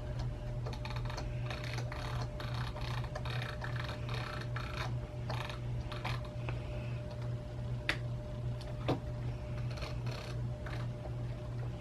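Small plastic clicks and rattles of a Razer gaming mouse's parts being handled and fitted back together, with a sharper click about eight seconds in and another about nine, over a steady low hum.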